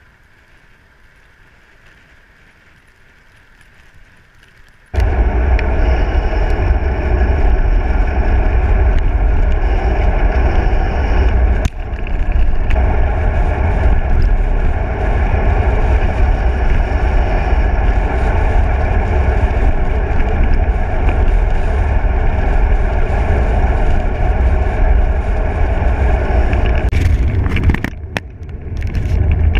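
Wind and road noise on the microphone of a camera riding on a road bicycle at speed: a loud, steady, low rumble that starts suddenly about five seconds in after a quiet start, easing briefly twice.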